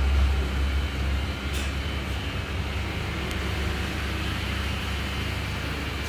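Steady low hum of running machinery, with a faint noisy haze above it and a couple of faint short ticks.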